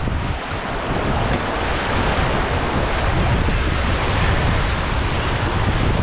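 Fast-flowing whitewater of the Ganges rushing steadily around the raft, with wind buffeting the microphone.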